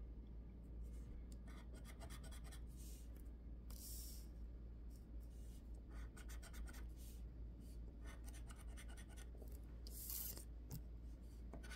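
Metal-tipped tool scratching the coating off a paper scratch-off lottery ticket: faint, short bursts of scraping with pauses between strokes.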